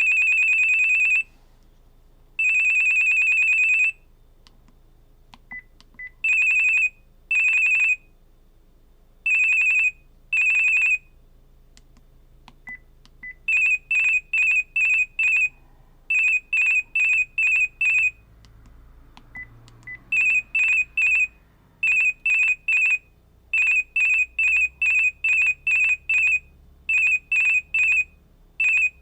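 Vodafone V601SH mobile phone's built-in electronic ring tones, played one after another through its speaker. A single high beeping pitch sounds in changing on-off patterns: first long tones, then pairs, then quick runs of four or five short pulses. Brief faint beeps come between the patterns.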